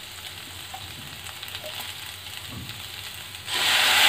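Onions and capsicum frying gently in a steel kadai. About three and a half seconds in, a sudden loud sizzle starts as soy sauce hits the hot pan.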